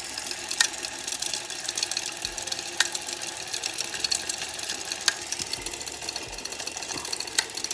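Bolex H16 non-reflex cine camera's spring-wound clockwork motor running: a fast, steady mechanical clatter with a sharper click about every two seconds. It is loud, typical of the non-reflex Bolex motor.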